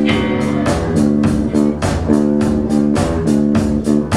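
Live rock band playing: electric guitars holding chords over bass guitar and a drum kit keeping a steady beat of about four hits a second.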